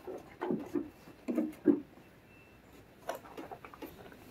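Knocks and handling thuds as a Vevor RR500 refrigerant recovery machine is set down on a platform scale, four in the first two seconds, then a few light ticks a little past three seconds in.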